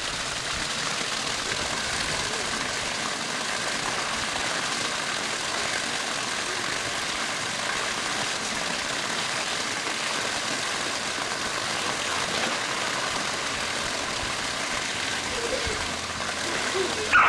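Pool water feature pouring a steady sheet of water into the pool, a constant splashing rush. A brief, sharp, louder sound comes right at the end.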